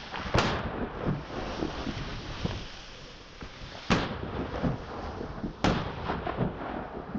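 Three gunshots: one near the start, then two more about three and a half and five seconds in. Each is a single sharp crack with a short echo, over a steady rustling background.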